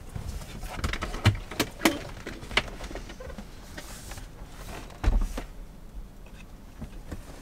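Cab-over bunk bed of a Vantech Cordo Leaves camper being pulled out and set up: a series of sharp knocks and clicks from its panels, with a heavier thud about five seconds in.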